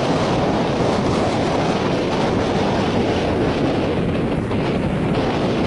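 Patrol boat running fast through open sea: a loud, steady rush of wind buffeting the microphone over the churn of water along the hull and the boat's engine.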